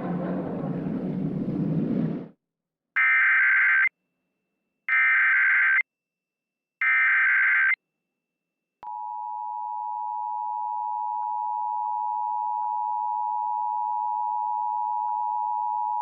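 Emergency Alert System test tones. Programme sound cuts off about two seconds in, then come three short bursts of SAME header data tones, about a second each and two seconds apart. After a short gap, the steady two-tone EAS attention signal starts about nine seconds in and holds.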